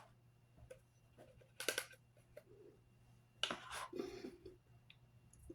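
Faint makeup-brush handling: short rustling sweeps and small taps as loose setting powder is knocked off. The two main rustles come about a second and a half in and again around three and a half seconds in.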